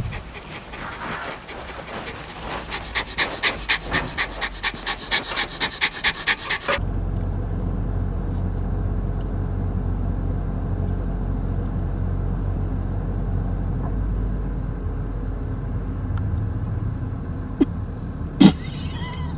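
A dog panting rapidly, about three to four breaths a second, growing stronger, until a sudden cut about seven seconds in to a steady low hum. Two sharp clicks come near the end.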